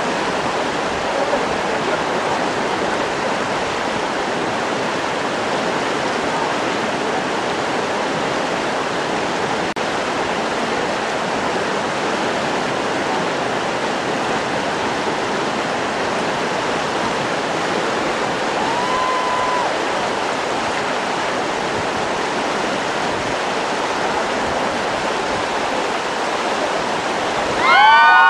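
Fast river water rushing steadily, the churn of rapids. Right at the end a group of people breaks into loud shouting and cheering.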